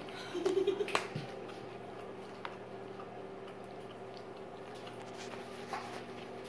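A puppy chewing and gnawing a raw lamb rib, with soft wet chewing and a few faint clicks. A brief louder stretch comes about half a second in, ending in a sharp click, over a steady low hum.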